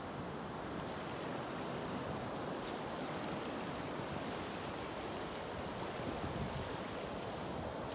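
Steady rushing water noise, like surf, with a faint click about two and a half seconds in.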